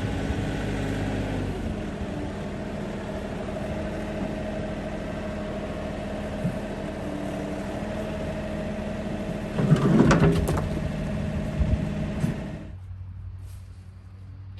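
An engine running steadily with a constant hum, with a louder rough stretch about ten seconds in; it drops away sharply about thirteen seconds in.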